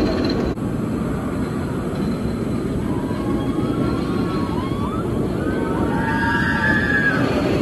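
A TOGO steel roller coaster train running along its track, giving a steady, loud rumble. Faint high sounds waver up and down in the second half.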